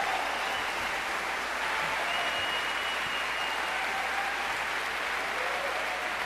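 Large audience applauding steadily in a big concert hall.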